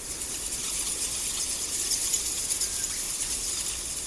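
Bat calls: high-pitched, rapid chittering over a steady hiss.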